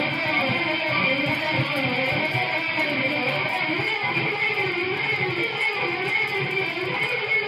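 Electric guitar, a Stratocaster-style instrument, playing a continuous run of notes with some wavering pitch. It sounds dull and band-limited, with no high treble.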